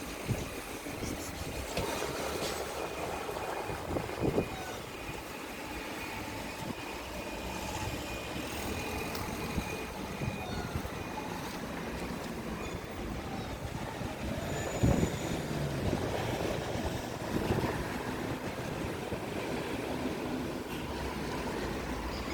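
Steady street traffic noise, a continuous rumble with a few brief louder knocks.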